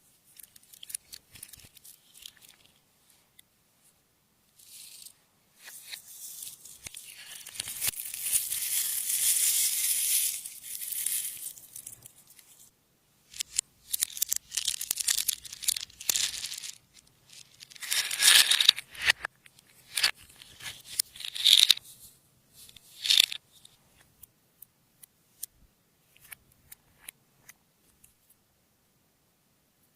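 Hands working sticky slime: crackling and popping in irregular bursts, with a long stretch in the first half and several short loud bursts after it, then only scattered faint clicks near the end.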